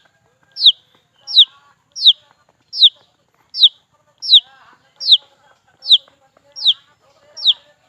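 Baby chick peeping loudly and insistently: a sharp, downward-sliding chirp repeated about every three-quarters of a second, ten times. Softer, lower calls sound faintly in between.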